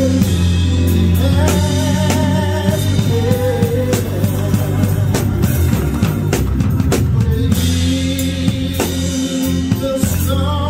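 Live gospel band playing, with drum kit and organ, and a male soloist singing over it.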